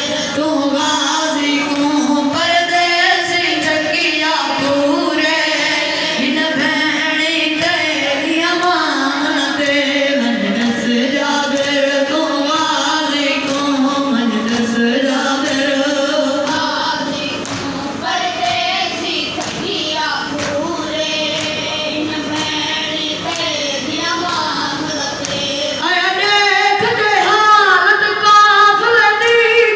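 Voices singing a noha, a Shia mourning lament, in a melodic chant, with faint rhythmic chest-beating (matam) underneath. It gets louder in the last few seconds.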